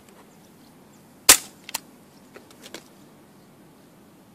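A single shot from a CZ 75 P07 Duty CO2 airsoft pistol, a sharp crack about a second in, fired through a chronograph to measure the BB's speed. A fainter click follows about half a second later.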